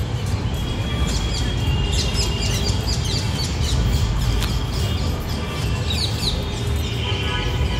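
Many birds chirping and squawking, a constant chatter of short calls, over a steady low rumble.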